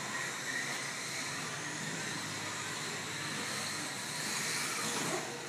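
Electric motors of Losi RC sprint cars whining over a steady hiss, the pitch gliding up and down as the cars run around the track.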